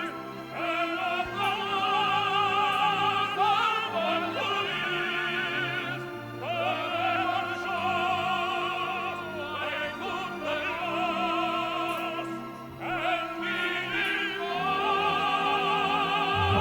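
Operatic tenor voices singing with wide vibrato over orchestral accompaniment, phrases held long with brief breaths between them.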